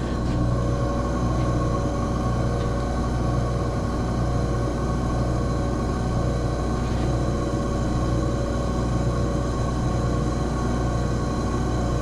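Oil-fired shop furnace running with its burner lit: a steady low rumble and hum that holds even throughout.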